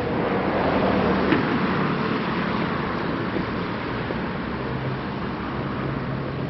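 City street traffic: steady road noise with a low engine hum, swelling as a vehicle passes about a second in, with one brief click.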